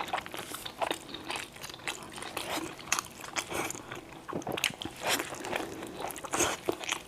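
A person chewing a steamed dumpling right at the microphone, with irregular wet mouth smacks and clicks.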